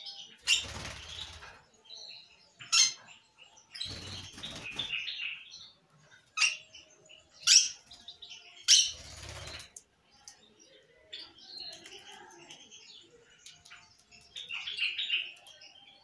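Young lovebird flapping its wings in three bouts of about a second each, with several short, shrill chirps in between and softer chirping near the end.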